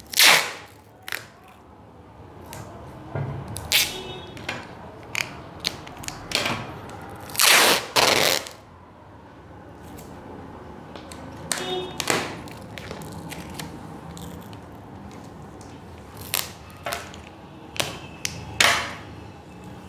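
Adhesive tape being pulled off its roll and torn, in several short rips with a longer, louder pull about eight seconds in.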